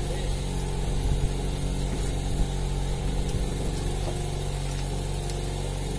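Engine on a small fishing boat running steadily at an even speed.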